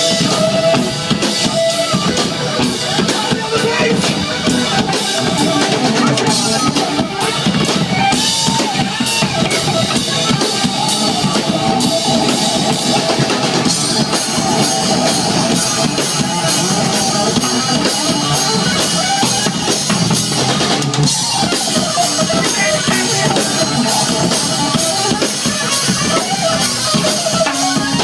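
Live rock band playing loudly: drum kit with electric guitar and bass guitar, the drums keeping a steady beat.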